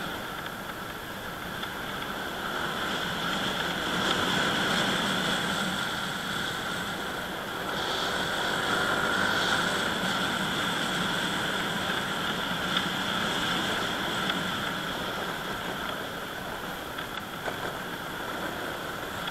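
A vehicle's engine running steadily on the move, mixed with road and wind noise on the riding camera's microphone, swelling a little now and then.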